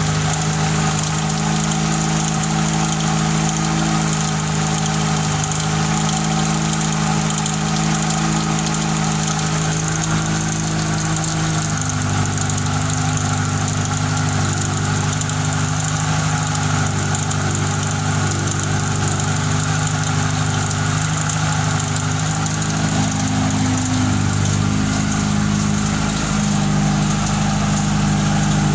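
Fiat Tempra 2.0 16-valve engine idling on a cold start with a loud exhaust. It carries a noise the owner cannot yet place, wondering whether it is a rod bearing, a piston or just some bearing. The idle note drops about twelve seconds in and rises again near the end.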